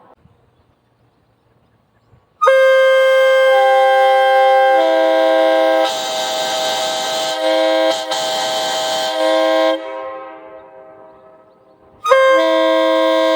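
Nathan Airchime K5-series five-chime train horn sounding a chord. It starts abruptly about two seconds in, with lower notes joining over the next couple of seconds and a hiss partway through, then fades out after about seven seconds. A second blast starts abruptly near the end.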